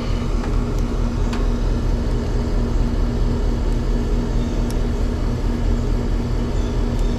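Steady machine hum from running HVAC equipment, with a constant low tone, and a few faint clicks about a second in, near the middle and near the end as a run capacitor is tested with a meter.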